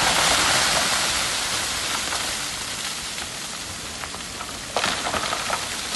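Soil and rock sliding down an excavation's cut face in a landslide: a loud rushing hiss of falling earth and stones that slowly fades, with a second surge of falling debris a little under five seconds in.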